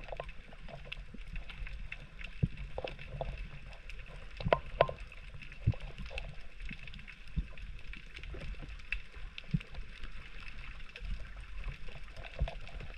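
Underwater ambience heard through a submerged camera: a low, steady water rumble with scattered sharp clicks and knocks at irregular intervals, two louder ones close together about four and a half seconds in.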